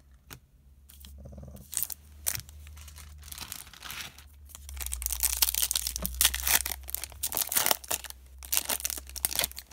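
Trading-card pack wrapper being torn open and crinkled by hand, an irregular run of crackling and rustling that grows louder over the second half.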